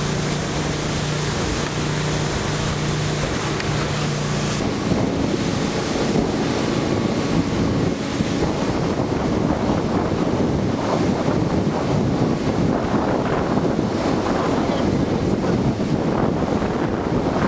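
Boat underway on open water: a steady engine hum for the first few seconds, then mostly wind buffeting the microphone and rushing water.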